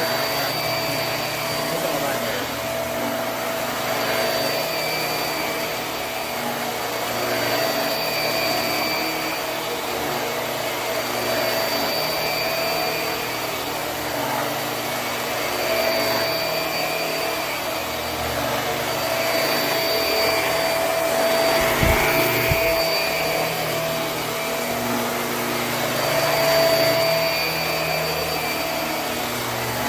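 Hoover High Performance Swivel upright vacuum running on carpet, its steady motor whine swelling and dipping as it works. Two brief low thumps come about three-quarters of the way through.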